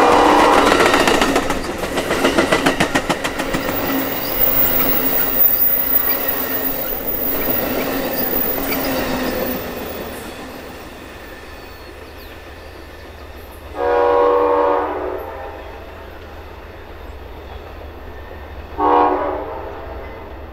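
Amtrak California Zephyr's bilevel Superliner cars rattling past with a regular clickety-clack of wheels over the rail joints, fading away after about ten seconds as the last car recedes. Then the train's horn sounds in the distance: a long blast about fourteen seconds in and a shorter one near the end.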